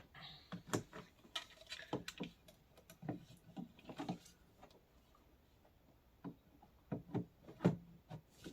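Light clicks and knocks of plastic ride-on toy parts being handled, a quick run of them over the first few seconds, then a pause and a few more near the end.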